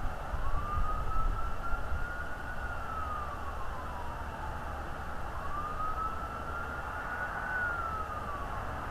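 Siren wailing: a single tone rises slowly, holds, then falls away, twice, about five seconds per cycle, over a steady low rumble.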